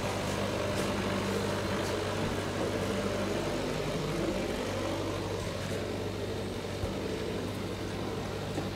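A motor or engine running steadily with a low hum, with a few faint clicks over it.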